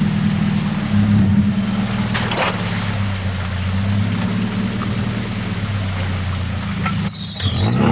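Suzuki Samurai's swapped-in 1.6-litre 16-valve four-cylinder engine running under load through an aftermarket exhaust while crawling. Its note drops about a second in and then holds steady. A brief high chirp comes near the end.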